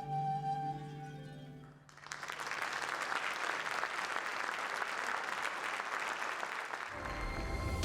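A ney's long held note over a low sustained drone ends in the first second or so, then an audience applauds for about five seconds. Near the end other music with a deep bass comes in.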